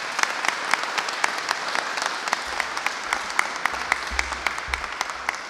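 Audience applauding: a steady patter of many hands clapping, tapering off slightly near the end.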